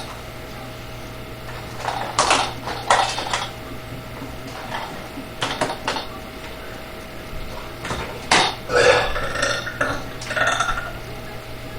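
A man burping repeatedly, the gas of a large bottle of Dr Pepper soda coming up. Short burps come in the first half, then a longer, drawn-out burp with a steady pitch near the end.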